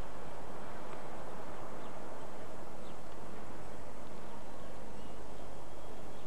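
Diesel locomotive running steadily as it moves slowly through a rail yard, a low engine hum under a wider noise, with a few faint clicks.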